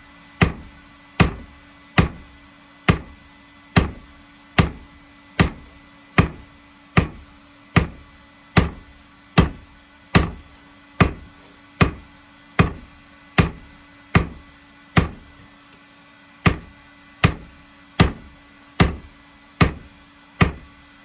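Hammer blows on hot steel over a small anvil, struck at a steady pace of a little more than one a second, each a sharp metallic clank that dies away quickly.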